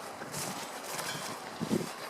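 Footsteps of someone walking, with a heavier step about three-quarters of the way through over a steady background hiss.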